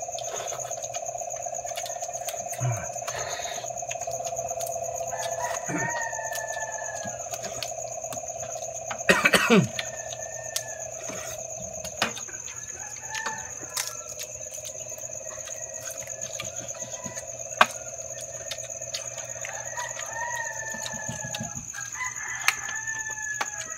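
Chickens calling briefly now and then over a steady hum and a steady high insect-like whine, with scattered clicks of crab shells being handled and eaten by hand. A louder clatter comes about nine seconds in, and the hum stops near the end.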